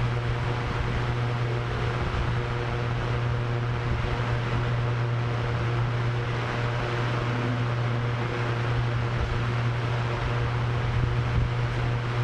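Drone propellers humming steadily at one unchanging pitch, with a gusty wind rush underneath.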